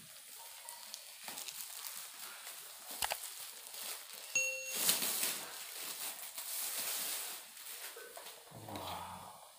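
Plastic wrapping crinkling and rustling as a plastic-wrapped fishing rod is handled, with scattered clicks. A single short bell-like ding sounds about four seconds in.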